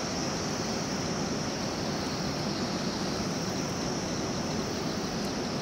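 Steady rushing of the Dudh Koshi river far below, with a steady high hiss over it.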